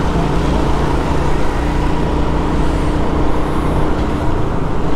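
Road traffic noise: a vehicle engine running steadily with the rushing noise of the road, no sharp events.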